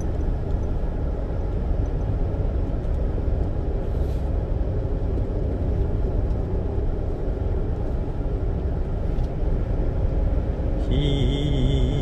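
A car driving along a paved road: a steady low rumble of engine and tyre noise. A voice comes in near the end.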